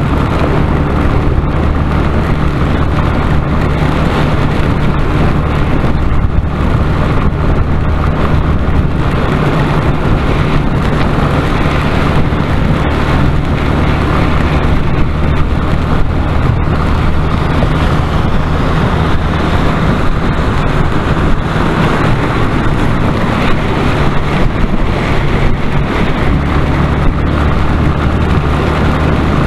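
Motorcycle engine running at a steady cruise, its low hum under a constant rush of wind and road noise while riding on a wet highway.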